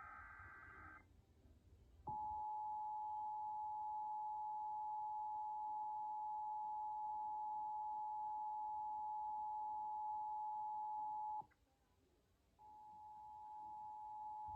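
Emergency Alert System audio. A short burst of warbling SAME header data tones plays first. About a second later the steady two-tone EAS attention signal sounds for about nine seconds and cuts off. After a second's gap, a fainter two-tone attention signal starts again near the end and grows louder.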